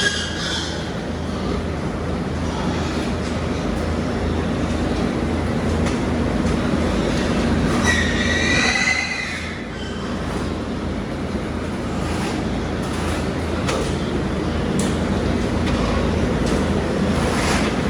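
A steady mechanical hum over a noisy background, with one high, wavering pig squeal about eight seconds in.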